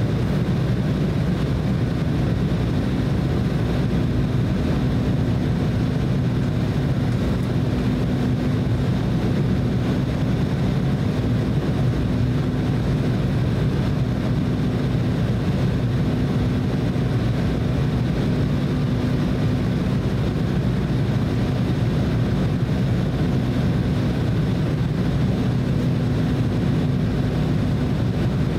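Steady cabin noise inside an Embraer E190 airliner on final approach: a low rumble from its two GE CF34 turbofans and the airflow, with a faint steady hum.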